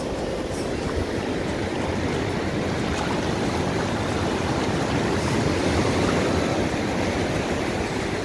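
Steady rush of surf washing up the beach, mixed with wind on the microphone, swelling slightly in the middle.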